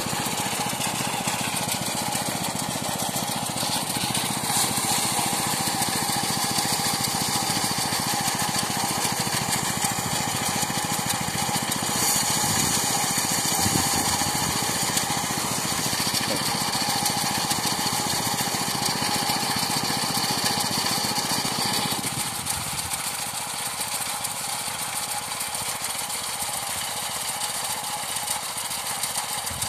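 Engine-driven rice threshing machine running steadily with a dense mechanical din. About three quarters of the way through, its sound thins and drops a little in level.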